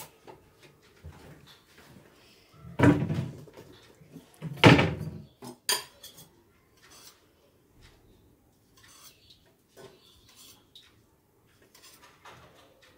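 Steel kitchen utensils clattering: a few loud knocks of metal about three and five seconds in, then scattered light clinks of a spoon against a steel tumbler.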